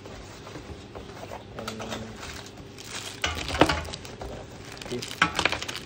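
Cables and a power adapter in plastic bags rustling and crinkling as they are handled and set down on a wooden table, with bursts of louder knocks and crinkles about three and a half seconds in and again about five seconds in.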